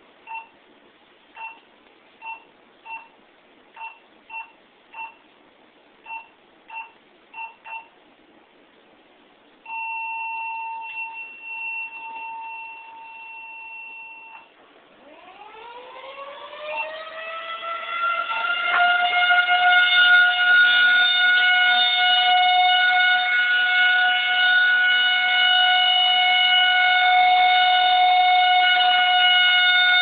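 A dozen or so short keypad beeps from a two-way radio, then a steady two-note activation tone, as the siren is keyed by radio. About 15 seconds in, a Federal Signal 2001-130 electromechanical outdoor warning siren winds up in a rising glide and settles by about 20 seconds into a loud steady alert tone, the test signal.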